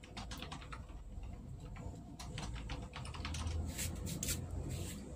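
Quick, irregular light clicks and taps from a bare LCD TV panel and its thin metal frame edge being handled and slid into place, with a few louder clicks near the end.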